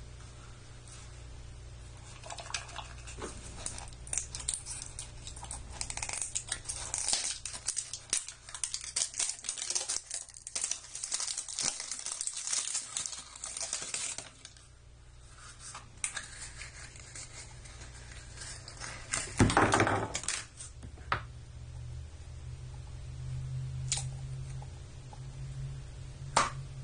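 Thin plastic shrink wrap crackling and tearing as it is peeled off a plastic toy capsule, a dense run of crinkles lasting about twelve seconds. Later the bare plastic capsule is handled, with a louder rustle about twenty seconds in and a few single clicks near the end.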